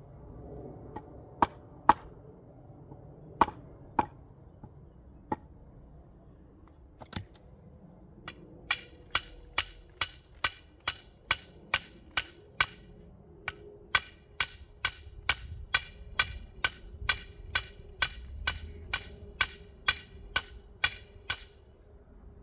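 Metal bar being hammered into the ground for a cage frame, with sharp ringing blows. A few scattered strikes come first, then steady strikes about two a second from around eight seconds in until near the end.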